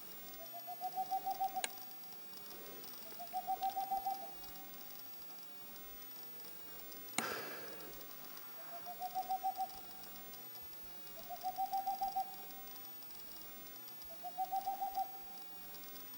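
A Tengmalm's (boreal) owl's staccato territorial song: five bouts of quick, evenly spaced hoots on one low pitch, each bout about a second and a half long, with the notes swelling in loudness through each run. The bouts repeat every two to three seconds. A single sharp click cuts in near the middle.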